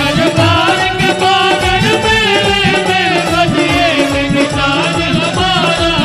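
Devotional Krishna bhajan music: a wavering, ornamented melody over a steady drone, with regular drum strokes.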